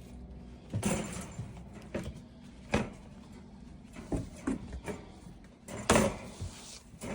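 Irregular knocks and clunks in a small room, about eight of them and unevenly spaced, with the loudest about six seconds in.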